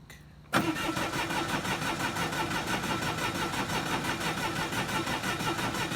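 Bobcat skid steer's diesel engine being cranked by the starter. It starts abruptly about half a second in and runs on as a steady, evenly pulsing churn; the engine does not fire.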